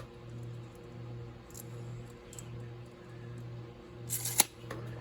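Steady low electrical hum. About four seconds in there is a brief rustle of handling and one sharp click, fitting the slip-joint pocket knife's blade snapping shut.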